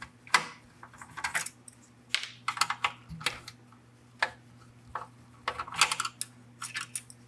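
Irregular light clicks and taps of a small screwdriver working screws out of a car radio's metal chassis.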